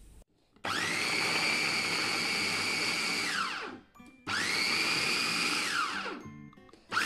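Mitochiba electric food chopper running in two bursts of about three seconds and two seconds, grinding raw chicken breast and garlic into mince. Each burst rises in pitch as the motor spins up and falls as it winds down. A third burst starts near the end.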